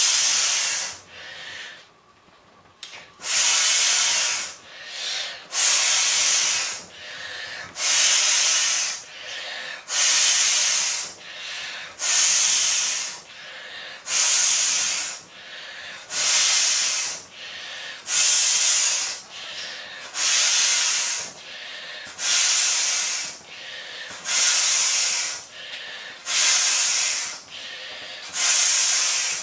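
Large inflatable beach ball being blown up by mouth: a hiss of breath forced through the valve, about a second long and repeated roughly every two seconds, with a quieter intake of breath between blows. There is a short pause about two seconds in.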